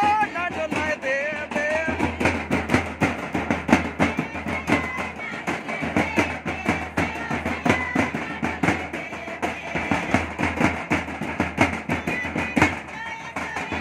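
Festive music with dense, fast drumbeats under a melody; a voice sings in the first couple of seconds.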